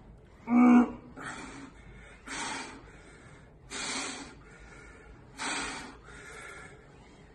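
A man's loud voiced grunt about half a second in, then a string of about five short, forceful breaths, the hard breathing of someone straining through weighted leg extension reps.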